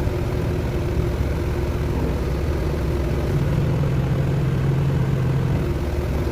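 TCM 175 wheel loader's diesel engine running steadily at idle, its note getting a little stronger for a couple of seconds midway.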